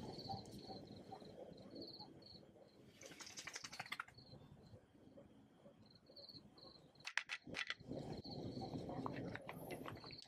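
Quiet clicks and taps of a spoon against small plastic jars and collapsible dog food bowls as toppings are spooned onto kibble. The clicks come in two quick clusters, about three seconds in and again about seven seconds in, the second the loudest. Faint high chirps repeat in the background.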